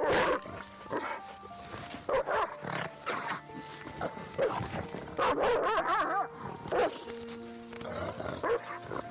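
A dog barking and yelping again and again, some calls wavering up and down in pitch, over background music with steady held notes.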